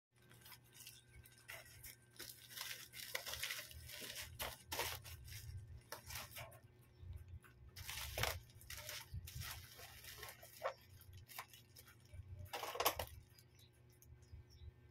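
Plastic parcel mailer bag rustling and crinkling as it is handled and turned over, in irregular bursts, with the loudest crinkle near the end.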